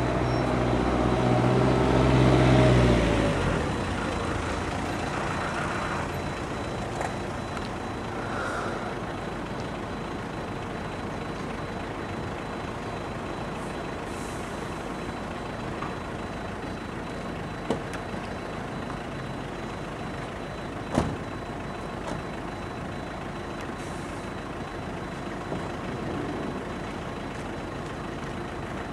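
Truck engine of a 14-metre folding aerial work platform running while the boom moves the basket: it revs up and drops back in the first few seconds, then runs steadily. There is a small click, then a sharp knock, later on.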